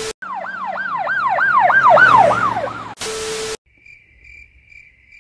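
Editing sound effects: a brief burst of TV static with a steady beep, then a siren-like wail sweeping up and down about three times a second and growing louder. About three seconds in, another static-and-beep burst cuts it off, followed by faint chirping crickets.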